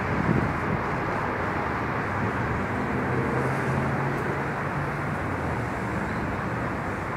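Steady roar of city street traffic, with a low hum joining in for a few seconds midway.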